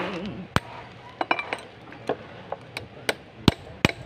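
Sharp metal-on-metal taps of a hammer and screwdriver against the metal housing of a truck starter motor being dismantled, about ten uneven knocks.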